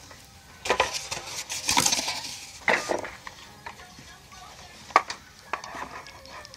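Handling noises of a crafting project on a tabletop: poster board and a hot glue gun being moved and set down, with a few rustling scrapes in the first three seconds and a sharp knock about five seconds in.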